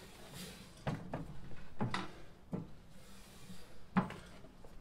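Old single-cylinder International Famous stationary engine being turned over by hand at its flywheel to start it, giving short mechanical clunks about once a second, the last the loudest; it has not yet caught.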